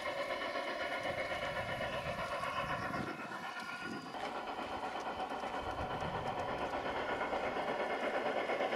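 Garden-railway model steam locomotive and its boxcars rolling along the track, running steadily.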